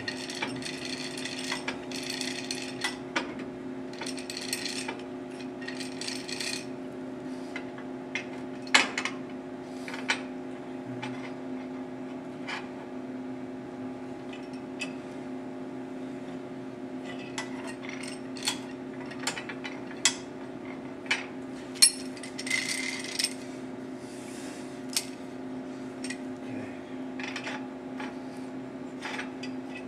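AC stick (arc) welding: the welder hums steadily while the electrode arc crackles and sputters in two stretches of several seconds, one at the start and another after about 17 seconds. Sharp ticks and pops are scattered in between.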